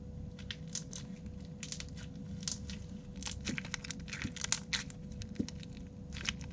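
Crunchy slime with beads mixed in being squeezed and pulled by hand, giving irregular crackling and popping clicks that come thicker after the first second or so.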